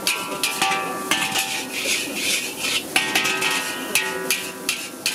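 A metal spatula clanking and scraping against a large iron wok as fried rice is stir-fried, repeated strikes about two to three a second over a frying hiss. Background music plays underneath.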